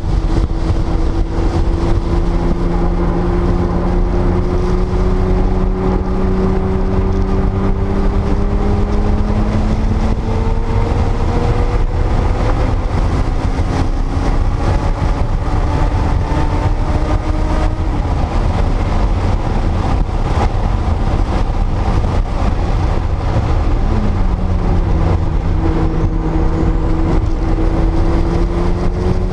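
Porsche 930 Turbo's air-cooled turbocharged 3.3-litre flat-six pulling under load at speed, its pitch climbing slowly through long stretches, dropping sharply with a gear change near the end and then climbing again. A heavy low rumble of wind and road noise runs under it.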